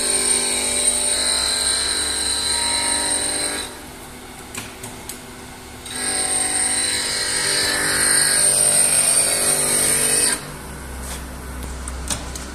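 Automatic planer knife grinder's motor-driven cup grinding wheel grinding along a steel planer knife, a loud steady high-pitched grinding whine. It drops to a quieter hum about four seconds in and grinds again from about six seconds to about ten seconds, then falls back to a quieter hum.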